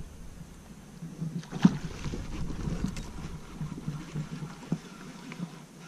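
Handling noises on a fishing kayak: light knocks and taps of gear against the hull, with one sharper knock about a second and a half in.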